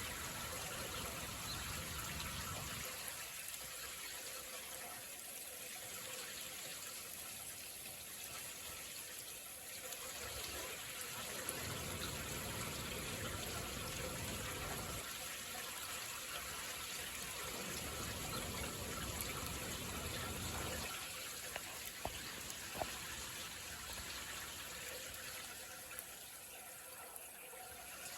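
Heavy rain falling steadily, heard through an open window, with deep low rumbles that swell and fade three times and a few sharp drip-like ticks near the end.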